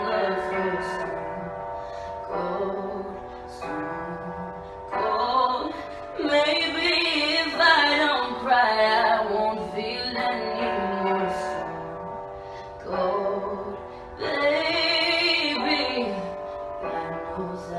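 A woman singing a cover with long, sliding vocal runs and few clear words, over a quieter instrumental backing track.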